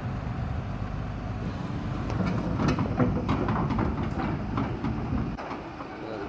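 Hyundai 220LC-9A excavator's diesel engine rumbling, with a run of irregular metallic clanks and clicks in the middle. The low rumble drops away suddenly about five seconds in.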